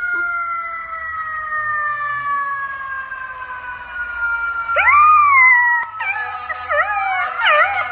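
A long, steady tone slowly falling in pitch, which the puppy answers: a golden retriever puppy gives one rising-and-falling howl about five seconds in, then wavering, warbling howls near the end.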